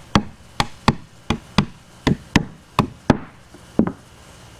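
Rubber mallet tapping pre-glued wooden dowels into their holes: about ten sharp knocks at an uneven pace, stopping shortly before the end.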